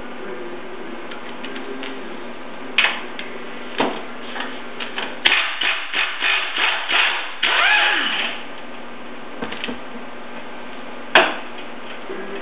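Metal-on-metal knocks and clanks on a steel mower deck being taken apart: two single strikes, then a quick run of knocks and a short scraping rasp, and one sharp, loudest clank near the end.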